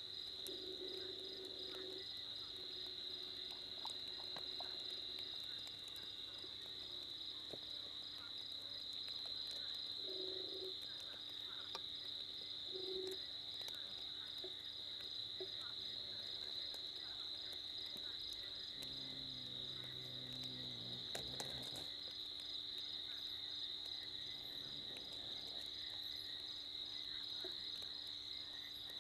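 Night insect chorus, crickets chirring in a steady high-pitched drone, with a few brief low sounds and one longer low sound a little past the middle.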